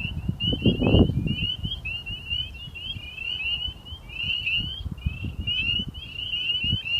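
A dense chorus of rapid, short, high chirps from many small animals, overlapping without a break. A low rumble runs underneath and is loudest about a second in.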